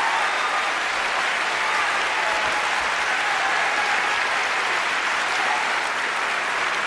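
A theatre audience applauding steadily.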